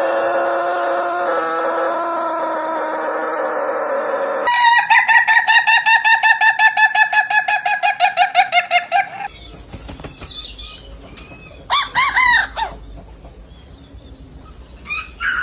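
Rooster calls in short cut-together clips: first a long held, steady call, then a fast run of about six or seven short calls a second that slowly fall in pitch, then a few separate short calls.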